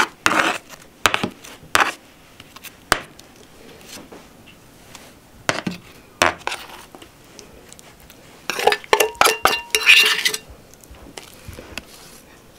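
Kitchen knife clinking and scraping against a metal tray in a few separate strokes. Then, about nine seconds in, a spoon scrapes and clinks quickly inside a metal bowl for a couple of seconds, with a ringing metallic tone, as chocolate glaze is scraped out.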